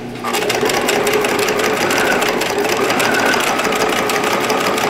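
Bernina 1008 sewing machine running steadily at speed, its needle stitching rapidly through curtain fabric and track.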